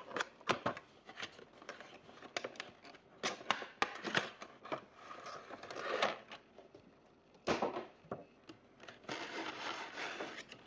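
A Funko Pop cardboard window box being opened and its clear plastic insert slid out and handled: irregular clicks, scrapes and crinkling of thin plastic and card.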